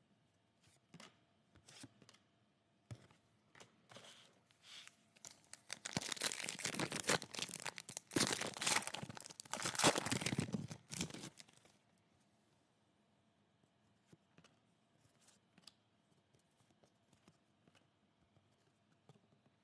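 A trading-card pack wrapper being torn open and crinkled, loud and crackly for about five seconds starting around six seconds in. Before it come a few light clicks and taps of handling, and after it only faint ticks.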